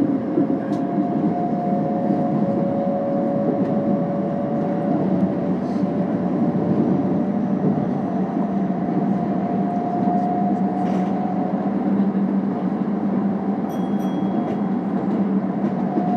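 Keikyu electric train running at speed, heard from inside the passenger car: a steady rumble of wheels on track with a motor whine holding a near-constant pitch, and a few faint clicks.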